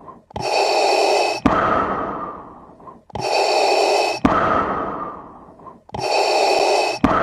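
Darth Vader's mechanical respirator breathing sound effect, three breaths through the mask. Each is a steady hiss about a second long, cut off by a sharp click and then trailing away, repeating every few seconds.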